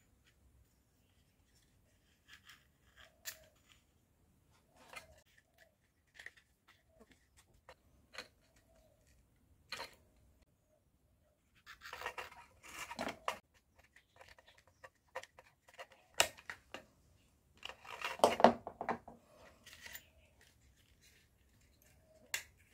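Hands handling aluminium can parts and wire on a homemade TV antenna: scattered light clicks and taps, with two longer bursts of scraping and rustling in the second half.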